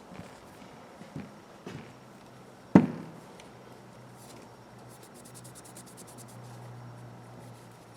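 Bench handling of metal hand tools: a few light knocks, then one sharp clank nearly three seconds in, followed by a faint steady low hum and a brief run of quick faint ticks.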